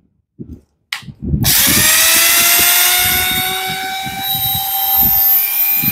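Max Pro corded electric drill triggered on about a second and a half in, spinning up to speed with a rising whine and then running steadily with nothing in the chuck, before being released and winding down at the very end: a no-load test run showing the stored drill still works. A short click comes just before it starts.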